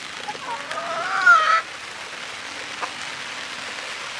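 A chicken gives one drawn-out call of about a second, rising in pitch and wavering, over the even hiss of falling rain.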